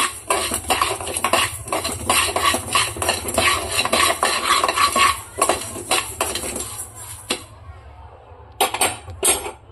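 Flat steel spatula stirring and scraping dry raw rice and fenugreek seeds around a black kadai, the grains rattling against the pan in quick strokes; it is dry-roasting in the pan's leftover heat with the burner off. The stirring stops about seven seconds in, and two short knocks follow near the end.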